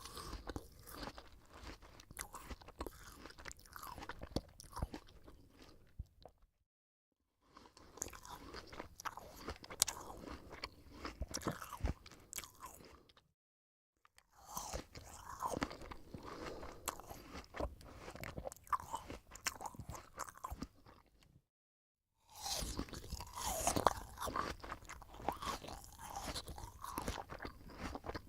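A person biting into and chewing a crisp apple close to the microphone: dense, irregular wet crunching of the apple flesh. It comes in four takes, separated by short gaps of dead silence.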